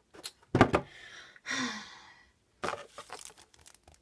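Hands handling items in a cardboard subscription box: a heavy knock about half a second in, a sigh, then rustling and crinkling of card and plastic packaging as the next item is picked up.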